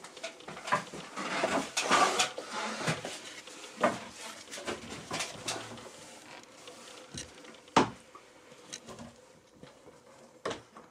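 Handling noise from fitting a bifold wardrobe door's top hinge-runner into its overhead track: rustling and scattered small plastic and metal clicks and knocks, with a louder click about two-thirds of the way through and another near the end.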